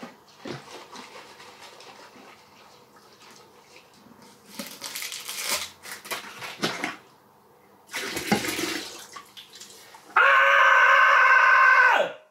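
Kveik yeast starter sloshing and splashing as it is swirled and poured from a glass flask into a fermenter bucket of wort. About ten seconds in, a man gives a loud scream held steady for about two seconds that stops abruptly: the kveik tradition of screaming when the yeast is pitched.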